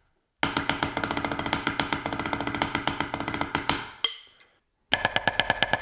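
Drumsticks playing a fast run of strokes on a Xymox Reserve practice pad set away from the middle of a desk, where the desk underneath colours the pad's pitch; the strokes stop after about three and a half seconds. After a short pause, fast even strokes start again near the end, with a ringing tone under them.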